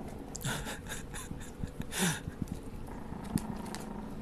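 Teacup Pomeranian puffing air hard through its nose while it keeps a plastic object clamped in its teeth: a quick run of short noisy puffs about half a second in, then a louder one about two seconds in.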